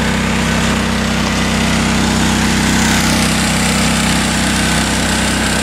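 Small gasoline engine driving a 2-inch water pump on a floating dredge, running steadily with an even drone.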